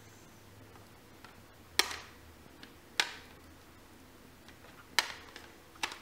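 Hard plastic shape pieces knocking against a plastic shape-sorter toy: four sharp clicks, one to two seconds apart.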